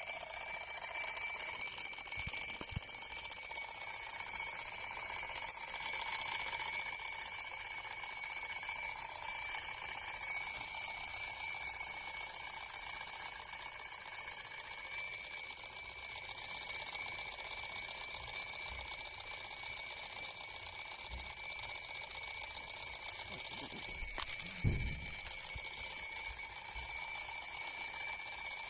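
Alarm clock ringing without a break, a steady high-pitched ring that goes on and on without waking the sleeper.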